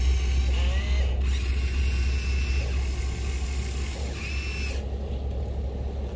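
Electric motors of a radio-controlled model excavator whirring as it digs, with short whines that rise and fall in pitch as the arm moves.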